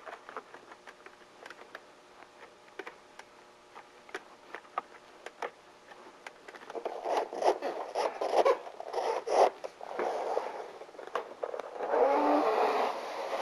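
Metal skylight flashing's sill apron being pressed and formed against a corrugated metal roof panel, making scraping and crinkling sounds. Faint scattered ticks at first; louder, irregular scrapes come in about halfway through and turn more continuous near the end.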